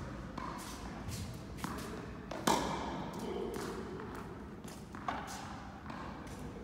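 Tennis ball hits and bounces on an indoor court: a few sharp impacts, the loudest about two and a half seconds in and another about five seconds in, with a little echo of the hall.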